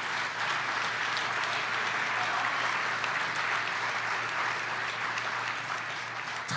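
Audience applauding: many hands clapping at once in a steady wash, easing slightly near the end.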